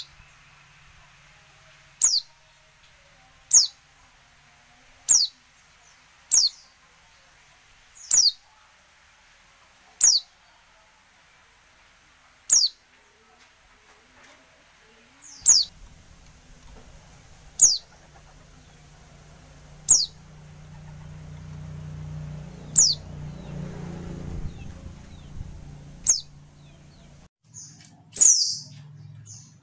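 Female white-eye (pleci) calling: single short, sharp notes that fall in pitch, repeated every one and a half to three seconds, about fourteen times. This call is used to prompt male white-eyes into singing. A low rumble swells in the background through the middle and fades out near the end.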